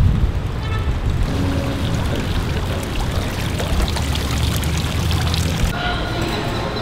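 Water splashing and trickling down a tiered fountain. Near the end it gives way to the hum of a store interior, with a few steady tones.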